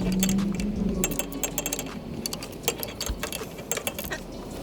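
Metal hand tools clinking and clicking irregularly against the car's underside, with a brief low hum near the start.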